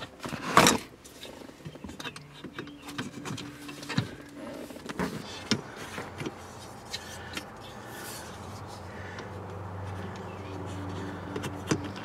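Dashboard trim strip on a BMW E46 being pressed and snapped back into its clips: one loud knock about half a second in, then scattered lighter clicks and taps of the trim seating.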